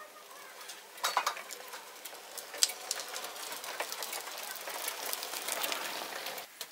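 Hand truck loaded with strapped beehive boxes rolling over paving stones: a clattering rattle with sharp knocks, growing louder as it comes closer, then cutting off suddenly near the end.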